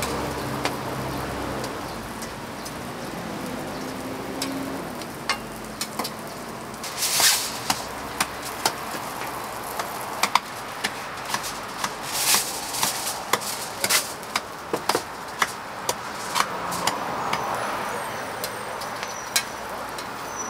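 Food frying on a griddle: a steady sizzle, with scattered sharp clicks and knocks of cooking utensils starting a few seconds in.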